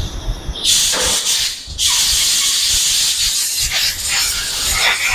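Compressed-air spray gun hissing as it blasts octane (petrol) through a motorcycle throttle body to strip the carbon deposits. A short burst comes about a second in, then a long steady burst from about two seconds on.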